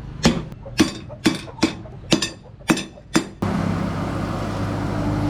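Hammer striking hot rebar on an anvil: seven sharp, ringing blows in an uneven rhythm. About three and a half seconds in, these cut off and a steady machine hum takes over.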